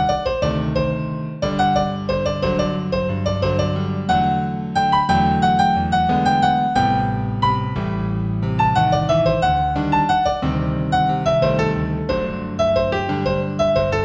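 Solo piano piece in G major at a moderate tempo of about 90 beats a minute: a melody of struck notes over repeated bass chords.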